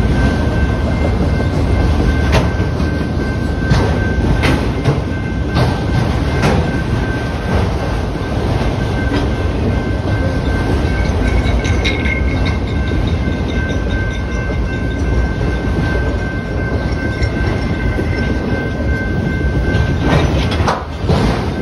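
Freight train of autorack cars rolling steadily past: a continuous low rumble of wheels on rail with irregular clanks and knocks. A thin steady high tone runs underneath.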